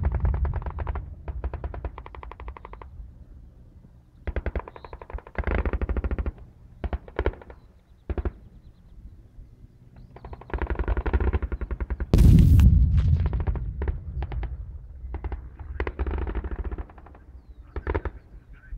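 Automatic gunfire in bursts of rapid shots, each run lasting a second or two, with a much louder explosion about twelve seconds in that rumbles on afterwards.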